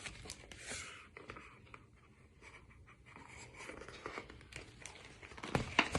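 Faint rustling and soft clicks of paper pages being handled, with a couple of louder rustles near the end.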